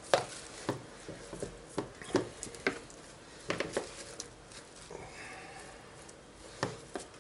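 Knife blade scraping the wet grated-beetroot, salt and sugar cure off a cured salmon fillet in a plastic tub: irregular wet scrapes and soft clicks, a few seconds apart.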